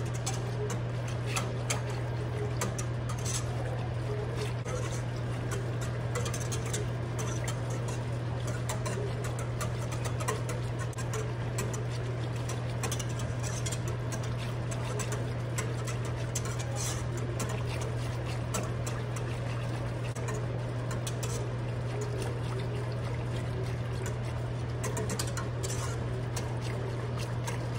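Wire whisk stirring thick, hot champurrado in a pot as the masa cooks and thickens: soft liquid sloshing with many light clicks of the whisk against the pot. Under it runs a steady low hum.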